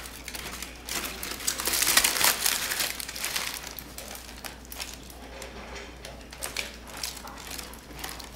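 Heavy aluminum foil crinkling and crackling as it is handled, loudest about one to three seconds in.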